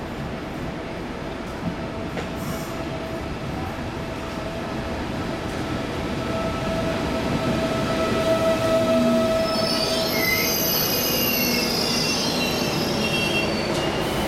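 Alfa Pendular tilting electric train (CP Class 4000 Pendolino) running slowly into the platform, getting louder as the cars pass, with a steady tone during the approach. From about ten seconds in, a high-pitched squeal rises as it brakes to a stop.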